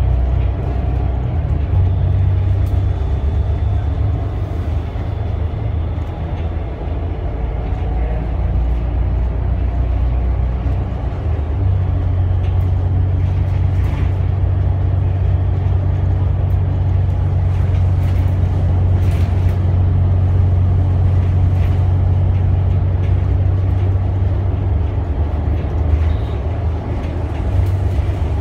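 Interior noise of a Volvo B8RLE city bus under way: its Volvo D8K six-cylinder diesel and ZF EcoLife automatic drivetrain give a steady low drone, heard inside the cabin near the rear. About twelve seconds in, the low engine note changes and settles into a stronger, steadier hum, with a few light rattles from the body.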